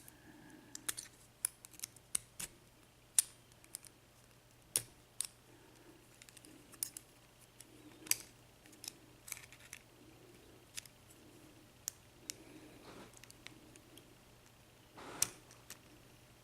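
Irregular sharp metallic clicks and taps of small tools against a brass TL Euro cylinder lock as it is worked apart by hand, with a louder cluster of clicks near the end over a faint steady low hum.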